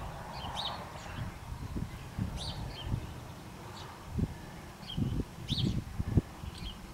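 Small birds chirping in short, repeated calls, with a few low thumps and bumps, the sharpest a little after six seconds in.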